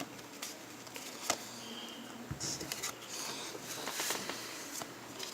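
Pokémon trading cards being handled: scattered light clicks and taps, with a stretch of rustling about halfway through.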